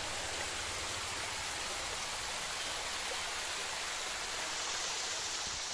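Steady rushing hiss, even and unbroken.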